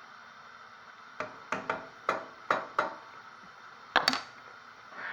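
A spoon knocking against the cooking pot as ramen noodles are stirred: about six sharp knocks in quick, uneven succession, then two louder knocks close together near the end.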